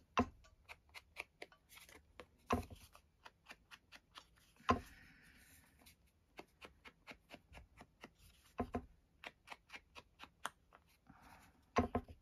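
Ink blending tool tapped over and over against an ink pad and a card tag while inking the tag's edges: light taps about three or four a second, with a few louder knocks spread through.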